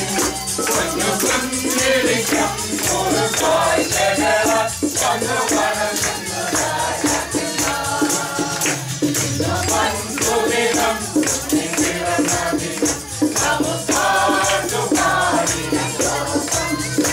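A group of carolers singing a Christmas carol together, with a shaken hand percussion instrument keeping a steady beat.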